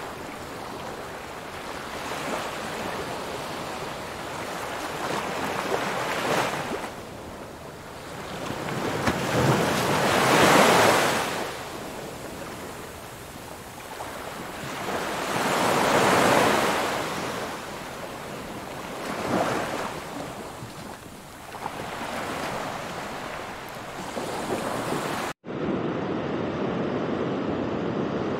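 Small waves washing up the shore, the wash rising and falling in several surges a few seconds apart, the loudest about ten and sixteen seconds in. About twenty-five seconds in it cuts abruptly to a steadier, duller hiss of sea and wind.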